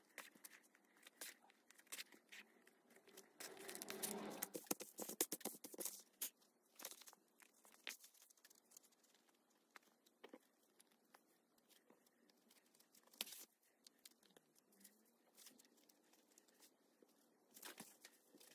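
Faint rustling and light clicks of a coonskin pelt being hand-stitched and handled: thread drawn through the hide and the fur piece moved about. There is a busier spell of rustling about four seconds in.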